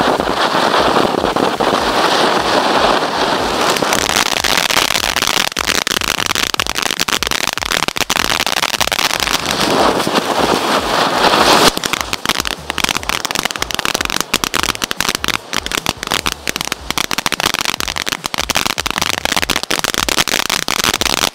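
Ice Cream Cone firework fountain burning with a steady rushing hiss of sparks. About twelve seconds in, it changes suddenly to a dense run of rapid crackling pops.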